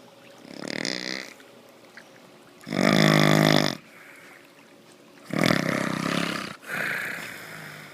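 Loud, rattling snoring: four long snoring breaths, the second the loudest and the last two running almost together.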